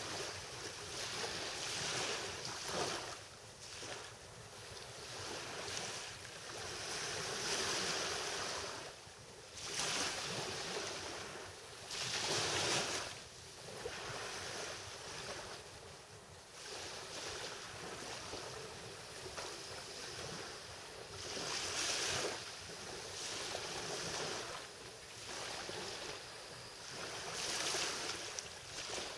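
Small waves from a calm sea lapping and washing onto a sandy shore, swelling and fading every few seconds.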